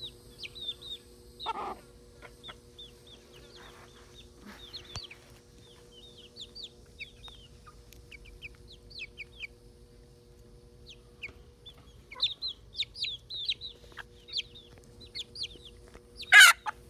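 A flock of chickens, silkies among them, clucking and giving many short, high chirps, with a louder call about a second and a half in. Near the end one bird gives a brief, very loud squawk.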